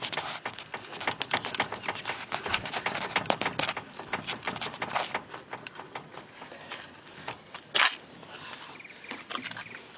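Skoda Fabia steering rack knocking: rapid, irregular knocks, dense for the first half and sparser afterwards, with one louder thump near the eighth second. The knocking is the sign of a worn steering rack.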